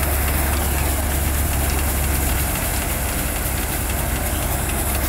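Mechanical threshing machine running steadily while threshing black gram: a constant low hum under an even rushing noise of the drum and flying chaff.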